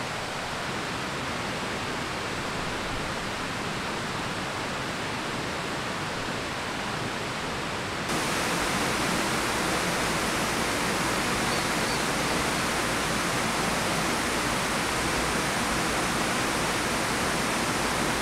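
Steady rushing of running water, which gets louder and brighter about eight seconds in.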